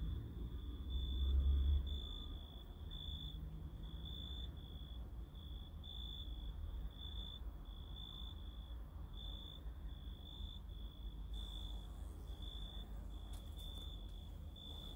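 A cricket chirping steadily, about two short high chirps a second, over a low rumble that is loudest in the first two seconds.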